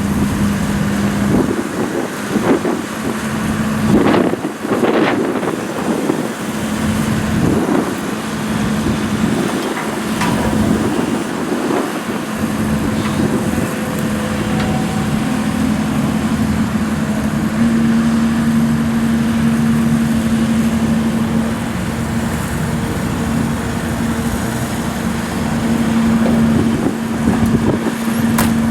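Diesel engine of a 2011 Sany SY135C excavator running with a steady hum, with irregular surges of noise in the first dozen seconds and the hum growing a little stronger about two-thirds of the way through.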